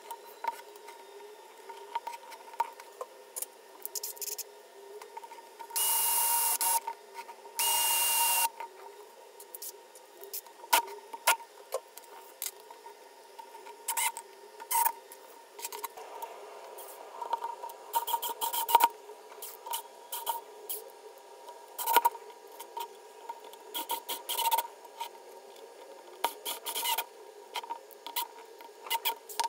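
Scattered clicks, taps and rubbing from parts being handled and fitted by hand, with two loud bursts of hiss, each about a second long, near a quarter of the way in.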